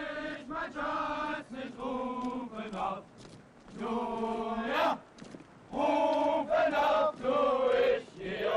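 A group of male soldiers singing a marching song in unison as they march, in sung phrases of a second or two with short pauses between.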